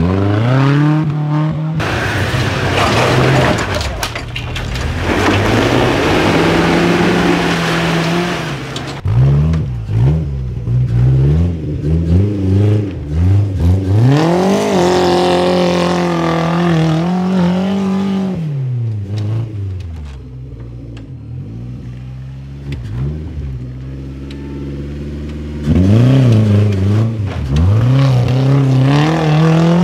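Small off-road trial 4x4s working up steep dirt slopes, their engines revving hard and dropping back again and again. Early on, a loud gritty rush of spinning tyres throwing dirt rides over the engine. Later a modified Suzuki Jimny's engine rises and falls in pitch as it claws up the muddy climb.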